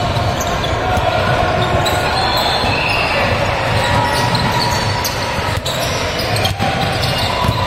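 Basketball bouncing on a gym court amid a steady, echoing din of players and spectators.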